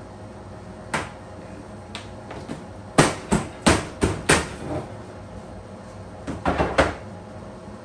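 Sharp plastic knocks and slaps as the lid of a plastic corn flour tub is pressed and slapped shut by hand. There is one knock about a second in, a run of about five loud ones in the middle, and a quick group of three near the end.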